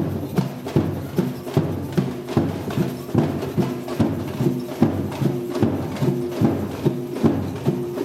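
Batucada samba percussion ensemble playing a steady groove: deep drums strike about two strong beats a second, with lighter, quicker stick hits filling in between.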